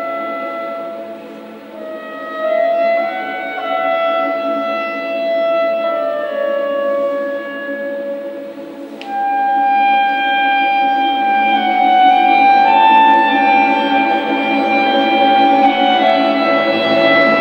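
Clarinet playing a slow, sustained legato melody over a string orchestra accompaniment, swelling louder about halfway through.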